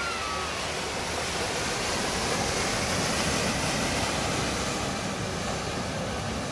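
Steady rush and splash of floodwater as a Range Rover ploughs through a flooded ford, throwing up a bow wave. It grows a little louder around the middle.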